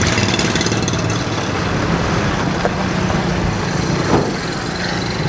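A motor vehicle engine running steadily, with a constant low hum over street noise and one short knock about four seconds in.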